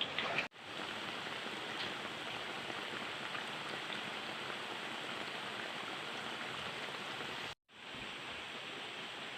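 Steady hissing noise that cuts out abruptly twice, about half a second in and again near the end.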